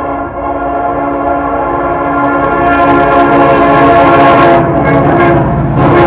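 A diesel freight locomotive's air horn sounds one long, steady chord as the train approaches, growing louder. The low rumble of the locomotive and its wheels builds through the second half.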